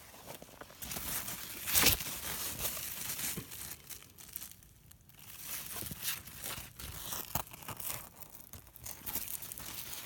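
Irregular rustling and crinkling of large pumpkin and squash leaves brushing and crackling against the phone as it is pushed in among the plants, with one sharper, louder crackle about two seconds in.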